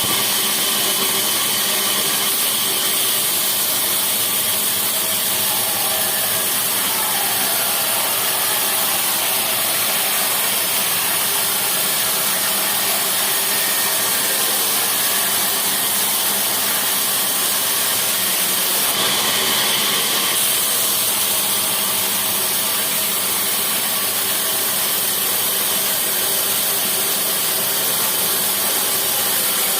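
Sawmill machinery running steadily: a loud, even, hissing machine noise that carries on without a pause.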